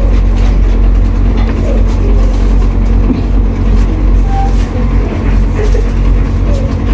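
Loud, steady low machine drone that does not change, like a running engine. Faint voices murmur over it.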